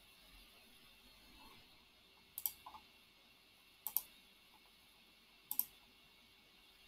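Computer mouse button clicked three times, about a second and a half apart, each click a quick double tick.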